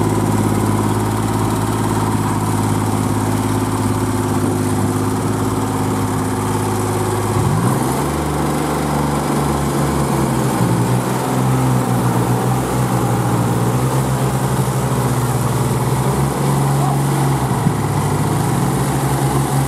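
Kubota compact tractors' diesel engines running under load as one tractor tows the other out of deep mud. About 7.5 seconds in, the engine revs up and holds a higher, slightly unsteady speed.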